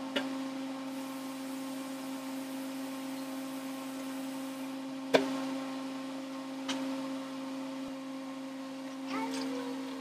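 A steady low electrical hum, with a few sharp clicks or knocks, the loudest about five seconds in.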